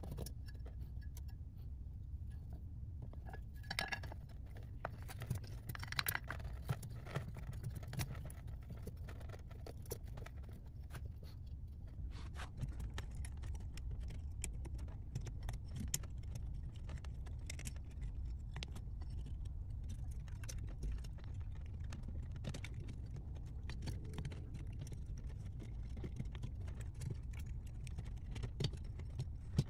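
Irregular light clicks and clinks of a golf cart motor's brush holder, carbon brushes and brush springs being handled and seated into the motor's end housing, over a steady low hum.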